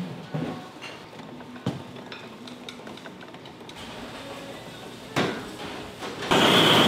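Restaurant kitchen background with faint clinks and a single sharp knock about five seconds in, then a loud rushing hiss that starts abruptly near the end.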